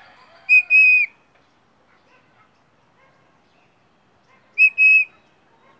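Caged songbird known in Mexico as a primavera, singing two loud, clear whistled phrases about four seconds apart, each a short note followed by a longer held one.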